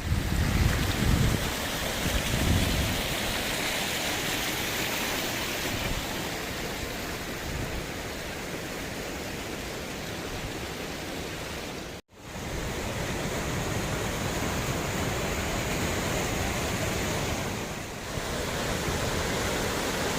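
Steady rush of water from a tall waterfall, with low rumbling in the first few seconds. The sound cuts out abruptly for a moment about twelve seconds in, then resumes.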